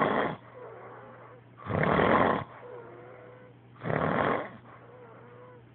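A sleeping man snoring loudly, one heavy snore about every two seconds, each lasting under a second, with a faint whistle between snores.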